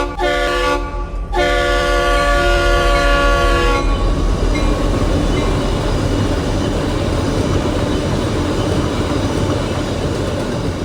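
Diesel locomotive horn sounding at a grade crossing, breaking off twice briefly and stopping about four seconds in. After it, the steady rumble and rattle of the locomotive and train passing close by.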